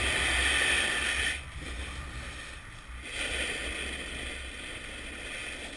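Snowboard sliding and scraping over groomed snow, with wind rushing over the camera's microphone. The hissing scrape is loud for about the first second and a half, eases off, then rises again from about three seconds in.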